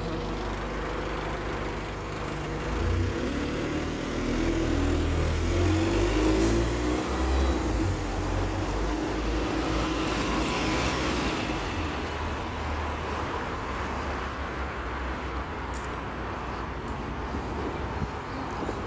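Road traffic on a city street: vehicles driving past, with a deep engine rumble loudest a few seconds in, then the hiss of passing cars.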